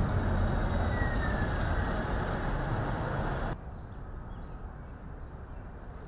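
City street traffic: vehicles passing with a steady low rumble and a faint falling whine about a second in. About three and a half seconds in it cuts to a much quieter, even outdoor background.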